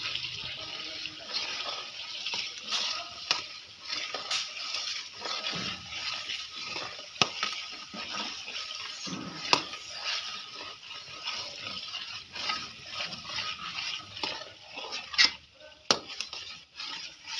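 Onion paste frying in oil in an aluminium pot, a steady sizzle, while a metal spatula stirs it, scraping and now and then knocking against the pot; the sharpest knocks come near the end.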